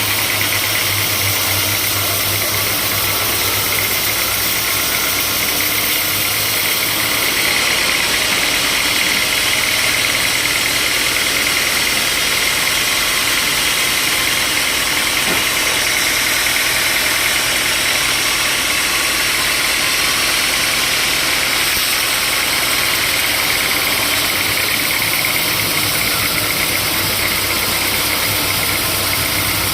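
Sawmill machinery running steadily, a loud continuous mechanical noise with a low hum that eases off for most of the middle stretch and returns near the end.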